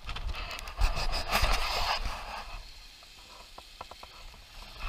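Gusty wind buffeting the microphone, with small waves washing onto a stony shore. It is loudest in the first half and eases after about two and a half seconds.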